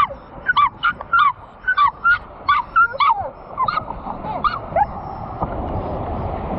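Small dog yipping excitedly in a quick run of short, high yelps, about two or three a second, stopping about five seconds in; after that only the wash of the surf.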